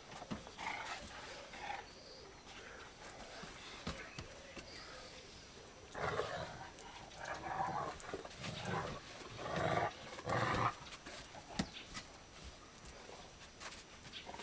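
Dogs growling as they play-fight, a run of rough growls between about six and eleven seconds in, with quieter ones near the start.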